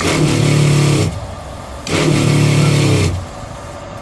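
Boat's fresh water pump running in two short bursts of about a second each, stopping in between. It is pressurising the water line after a leaking fitting was resealed with Teflon tape, and the fitting now holds.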